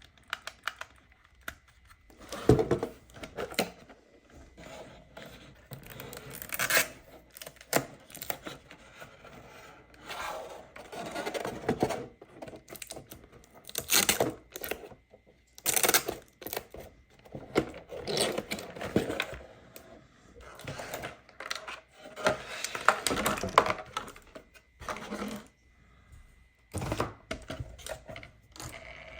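Toy packaging being handled and opened: irregular rustling, tearing and scraping, with scattered clicks and clatters of plastic and cardboard.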